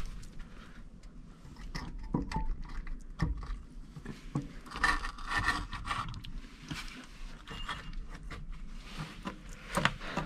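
Scrapes, clicks and light knocks of a heavy marine diesel charge air cooler housing being lifted and twisted by hand onto its mounting studs and hose coupling, with a longer scraping rub about five seconds in.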